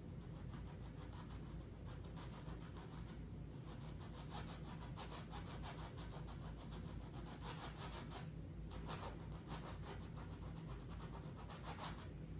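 Stiff bristle brush scraping acrylic paint onto canvas in repeated downward strokes, faint and scratchy. The brush is nearly out of paint, so it is dry brushing.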